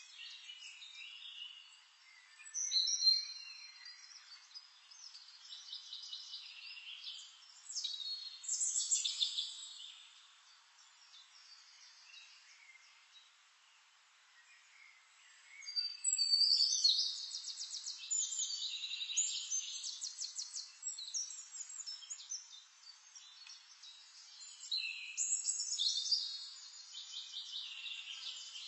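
Songbirds singing: a run of chirps and calls with bursts of fast trills, loudest about three seconds in, around eight to ten seconds, from about sixteen to twenty-one seconds and again near the end.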